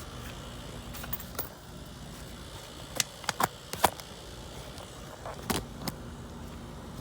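A few short, sharp metallic clicks and clinks in small clusters, with the loudest group around three to four seconds in, over a steady low hum: metal gear being handled.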